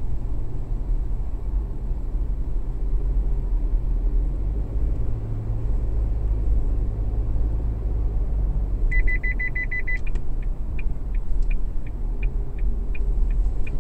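Steady low road and engine rumble heard inside a moving car's cabin. About nine seconds in, a high electronic beep starts: it pulses rapidly for about a second, then carries on as slower, evenly spaced beeps, about three a second.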